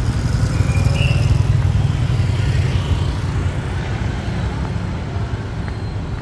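Street traffic of many motorbikes running close by, a steady low rumble, with a brief high tone about a second in.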